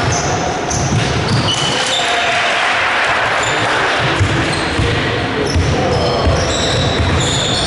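Indoor basketball game: the ball bouncing on the court floor and sneakers squeaking, with a swell of crowd noise in the middle.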